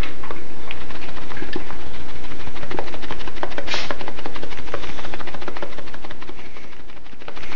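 Black pepper being ground from a pepper mill, a dense run of fine rapid clicks and grinding that goes on for several seconds.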